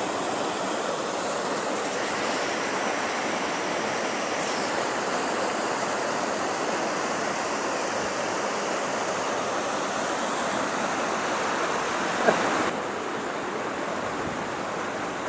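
Waterfall rushing steadily over rocks into a pool. About twelve seconds in, the rush turns slightly quieter and less hissy.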